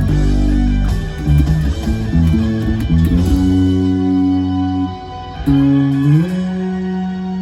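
Electric bass guitar played along with a rock ballad: a run of plucked notes, then long held notes, with a slide up to a higher note about six seconds in.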